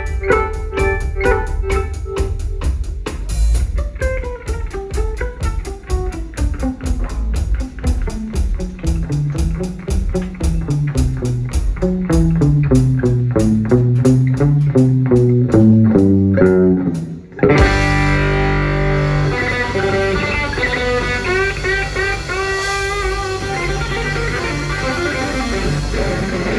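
Live rock trio of electric guitar, bass guitar and drum kit playing an instrumental passage led by the electric guitar. The guitar plays a long run that falls from high notes to low ones and weaves among them. About two-thirds of the way in the sound breaks off abruptly and the full band comes back in thicker, with quick trilled guitar figures.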